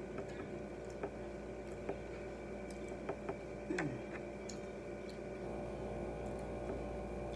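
Quiet closed-mouth chewing of french fries: a few faint, scattered mouth clicks and smacks over a steady low hum.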